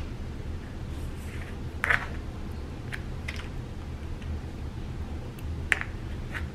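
A metal spoon tapping and clicking a few times against a margarine tub and a ceramic baking dish as margarine is scooped out and dropped onto potatoes. The loudest tap comes about two seconds in, over a steady low background hum.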